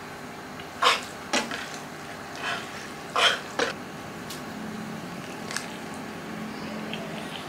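Someone eating instant noodles: about five short slurping and mouth sounds in the first few seconds, then quieter.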